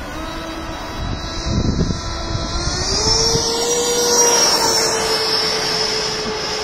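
Small propeller motor running with a steady whine that rises in pitch about three seconds in and then holds, with a rough low rumble under it before the rise.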